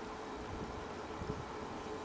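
Steady outdoor background hiss with low wind rumble on the microphone and a faint steady hum.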